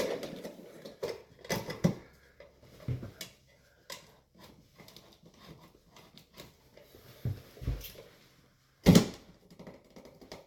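Scattered clicks, taps and knocks of hands working cable into a plastic electrical switch box, with one sharper knock about nine seconds in.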